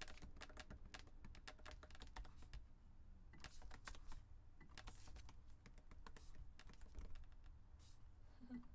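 Faint typing on a computer keyboard: a quick run of keystrokes in the first couple of seconds, then short bursts of keys with pauses between.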